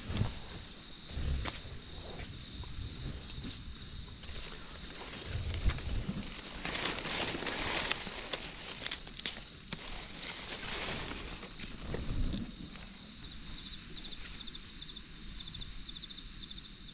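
Footsteps and rustling through forest undergrowth, with a few low thumps, over insects calling in a high steady trill; a rapid pulsing insect call joins in over the last few seconds.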